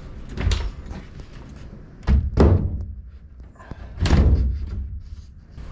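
A plywood door knocking shut into its wooden door frame with three heavy thuds, about two seconds apart, as it is test-fitted.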